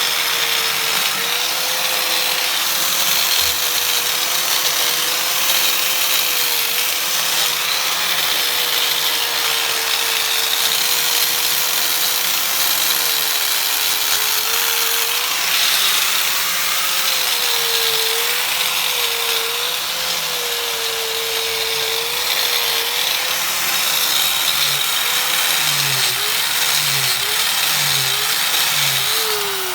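Angle grinder polishing an aluminium Honda C70 engine case: a steady motor whine over the hiss of the wheel on the metal, the pitch sagging briefly each time the tool is pressed into the work. Several quick dips come near the end, and the pitch falls sharply right at the end.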